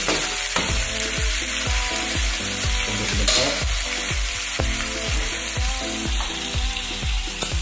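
Sardines in sauce sizzling in a frying pan on a gas stove, under background music with a steady beat of about two thumps a second.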